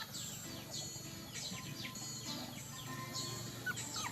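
Small birds chirping: a run of quick, high chirps, each falling in pitch, about two a second, over a low steady hum.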